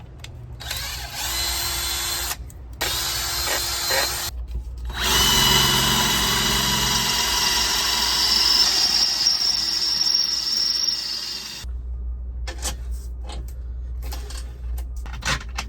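Power drill enlarging a hole, run in three bursts, the last and longest about six seconds. It stops about two-thirds of the way through, followed by a few light knocks.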